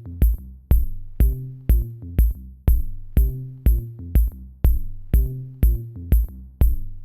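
Electronic background music with a steady kick-drum beat, about two beats a second, each beat topped by a crisp high hit, over a shifting bass line.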